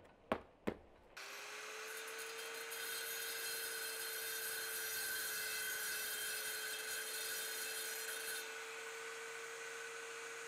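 A few sharp knocks, then an electric angle grinder starts about a second in and its cutting disc grinds through a brick with a steady whine and a gritty hiss. A little past eight seconds the disc comes free of the brick, and the grinder keeps spinning with the hiss gone.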